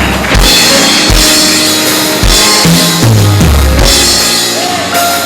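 Live praise band playing an instrumental passage of a slow worship song: drum kit with bass drum, snare and cymbals over deep bass notes that change about once a second, with held chords above.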